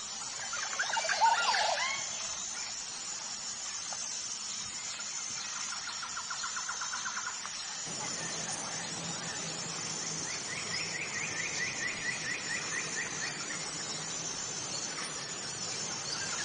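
Wild birds calling: a burst of loud squealing calls about a second in, then two rapid trills of repeated notes, the second higher and lasting about three seconds. A steady, thin high-pitched whine runs underneath.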